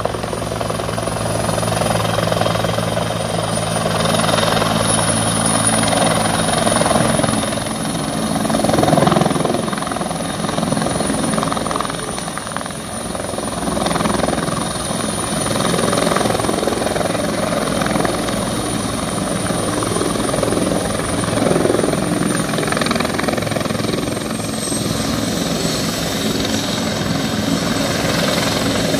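Bell 412EP twin-engine helicopter landing: steady, loud rotor and engine noise with a thin high whine above it. The whine drops slightly in pitch near the end, as the helicopter sits on the pad with its rotors still turning.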